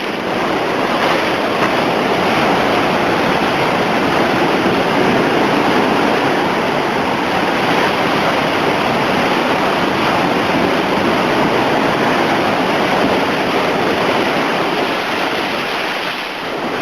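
Large hurricane-driven ocean waves pounding the shore: a loud, steady rush of heavy surf, with wind noise on the microphone.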